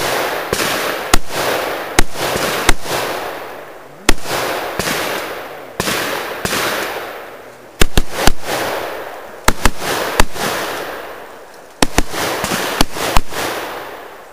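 AR-15 semi-automatic rifle firing a course of fire: about eighteen sharp shots, some single, others in quick pairs and triples, with pauses of one to two seconds as the shooter moves, each shot trailing a long echo.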